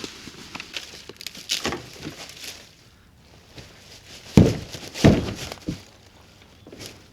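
Rustling and scuffing of a deer carcass being dragged, then two heavy thuds about four and a half and five seconds in, with a lighter knock just after.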